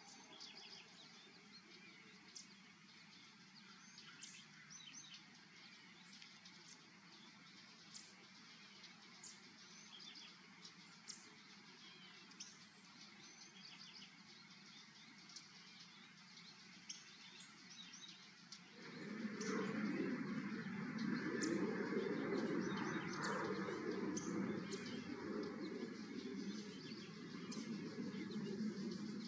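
Small birds chirping repeatedly in short high notes over a faint background. About two-thirds of the way through, a much louder steady rushing noise comes in suddenly and stays, burying the chirps.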